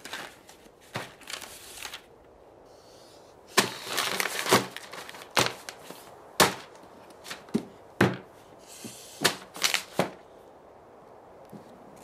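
Sharp cracks and snaps at uneven intervals, some trailed by a brief crunching rustle, with a quieter gap from about two to three and a half seconds in.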